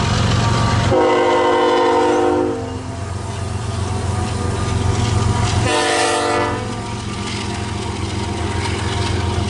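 Diesel locomotive's multi-chime air horn sounding two blasts, a longer one about a second in and a shorter one just past the middle, over the steady low rumble of the train.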